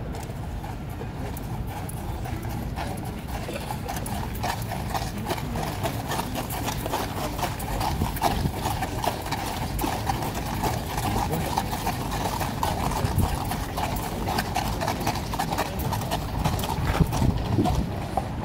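Hooves of a column of cavalry horses walking on gravel: many overlapping, irregular clip-clops with no break.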